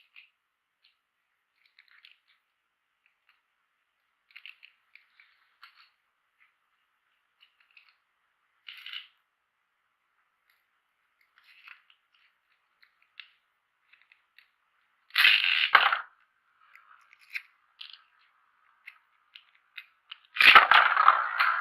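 Plastic Beyblade parts being handled: scattered light clicks and taps, then two louder bursts of plastic clatter and scraping, one of about a second midway and a longer one near the end.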